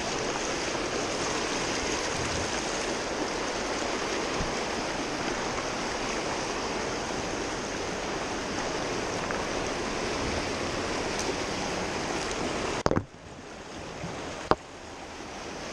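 Fast, shallow river rushing over rocks in a riffle, a steady hiss. Near the end come two sharp knocks about a second and a half apart, and after the first one the water sounds duller and quieter.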